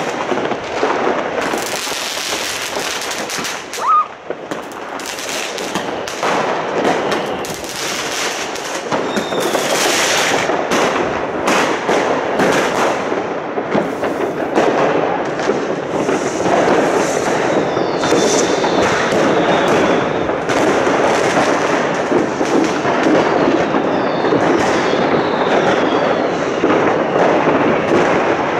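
Fireworks and firecrackers going off all around: continuous dense crackling and bangs, with a few whistling glides from rockets in the second half.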